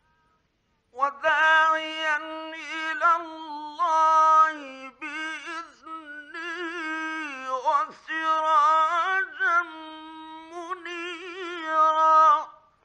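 A man reciting the Quran in the melodic Egyptian mujawwad style, from an archival 1950s radio recording. He begins about a second in, with long ornamented phrases whose pitch wavers around a high held note, separated by brief breaths.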